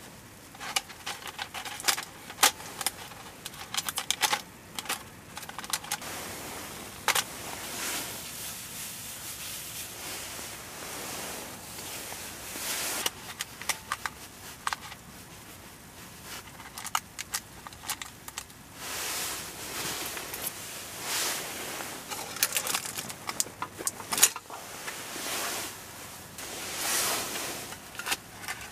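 Scattered light clicks, taps and rustles of food being packed into a parchment-lined mini cast-iron square Dutch oven and pushed into place with chopsticks. Near the end, clinks as the charcoal-topped lid is set on.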